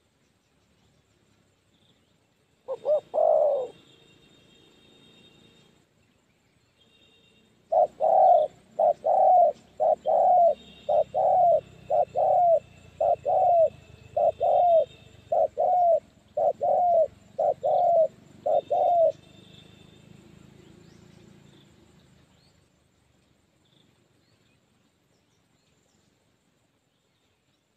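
Spotted doves cooing: a short burst of coos about three seconds in, then after a pause a steady run of over a dozen short coos, roughly one a second, which stops about two-thirds of the way through.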